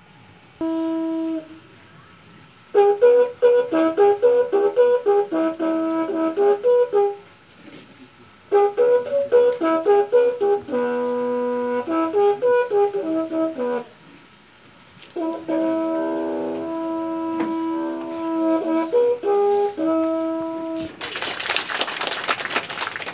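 Solo trumpet: one short note, then three phrases of quick, tongued notes with pauses between them. A loud burst of noise follows near the end.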